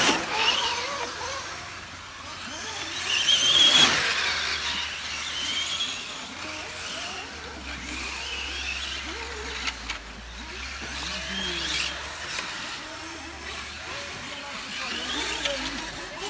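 Brushless electric 1/8-scale GT RC cars on 6S lap the track. Their motors whine, the pitch rising as each car accelerates past. The passes come about every four seconds, and the loudest is about four seconds in.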